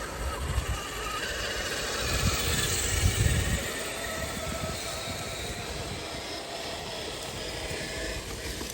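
An RC rock crawler's motor and gears whine steadily as it crawls over the terrain. Low rumbling surges come about half a second in and again from about two to three and a half seconds in, the loudest part.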